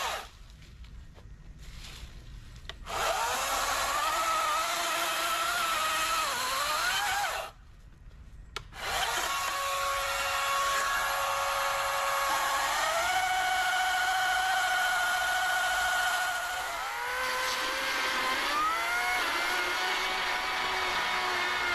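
Wild Badger Power 40-volt cordless brushless electric chainsaws, the 14-inch and then the 16-inch, cutting through logs. The high motor whine dips in pitch each time the chain bites into the wood and climbs again as it frees up. There is a brief break about a third of the way in.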